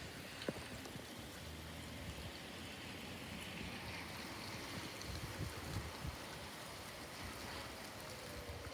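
Steady heavy rain and wind in a thunderstorm. Near the end a faint tone that slowly falls in pitch comes up through the rain: a distant tornado siren.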